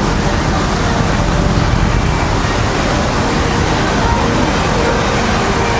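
Steady loud rushing background noise of a body shop, even throughout with no distinct events.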